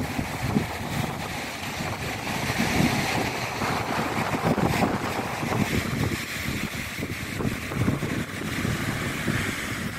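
Wind buffeting the microphone in uneven gusts, over the hiss of small waves breaking on a shingle beach below.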